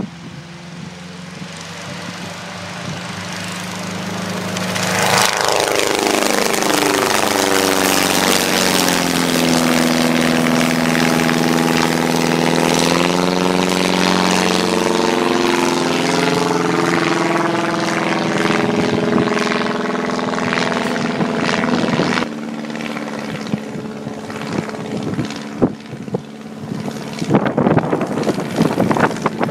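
A Wallis autogyro's engine and pusher propeller in flight, growing louder over the first few seconds, then a sweeping, phasing drone as it passes overhead, dropping back somewhat later on. Irregular crackling knocks come in near the end.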